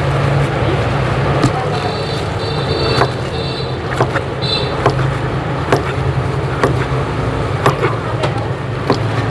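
Street noise: a steady low traffic hum with scattered sharp clinks and knocks throughout.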